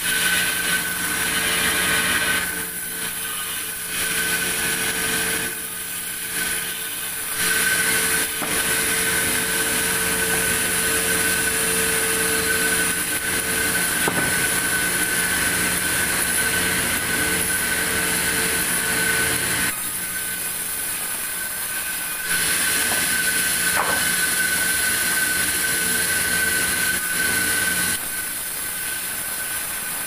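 Large vertical band saw mill running and ripping boards from a big log, a steady high whine with a hiss. It grows louder and softer in long spells as the cutting passes come and go.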